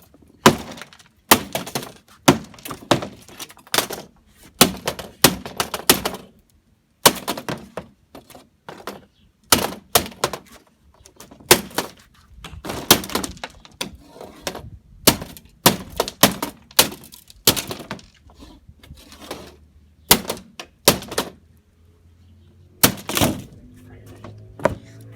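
Repeated hard blows smashing a vintage modem's cheap plastic casing: sharp cracking impacts, about one or two a second, with a short pause near the end.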